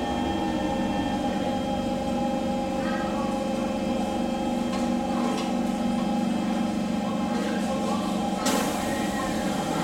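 SMRT C151 metro train running and slowing along the station platform, heard from inside the carriage: steady whining tones from the electric traction drive with a rumble underneath. A short hiss cuts in about eight and a half seconds in.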